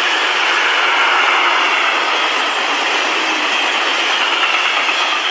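Empty railway tank wagons of a freight train rolling past on the track: a loud, steady rush of wheel and rail noise as the last wagons go by.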